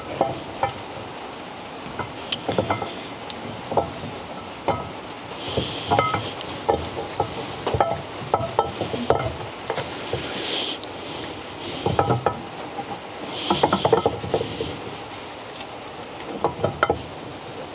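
Steel camshaft being slid by hand through the bearing bores of a BMW M20 aluminium cylinder head: irregular light metallic clicks and knocks, with several short scrapes as the lobes and journals catch and rub in the bores.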